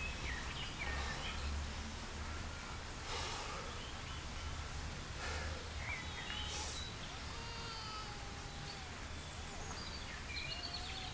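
Park ambience: birds chirping and singing over a steady low outdoor rumble, with a few heavy out-of-breath exhalations from a winded runner.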